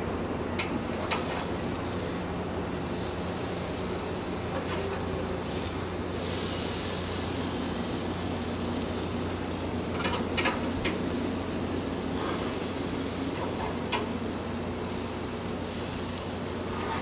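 Chicken breasts sizzling on a gas grill's grates, a steady hiss that grows louder about six seconds in as the pieces are turned over onto the hot grate. Light clicks of metal tongs come now and then.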